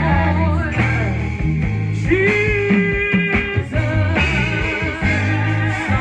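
Gospel band music with a moving bass line and a wavering melody, with a long held note in the middle.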